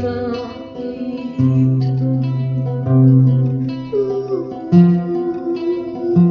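Plucked guitar music: notes ringing over bass notes that change about every second and a half.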